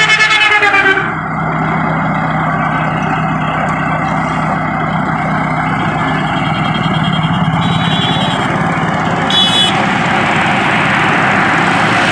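Heavy diesel engine running steadily, with a horn sounding for about the first second and dropping in pitch as it cuts off, and a short toot about nine seconds in.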